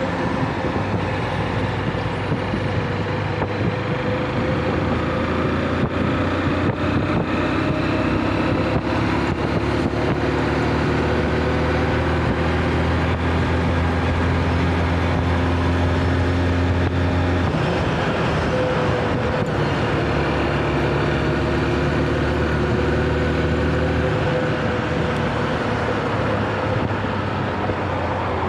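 Small motorcycle engine running under way, ridden through traffic, with road and wind noise. The engine note holds steady for long stretches and changes pitch a little past halfway and again near the end.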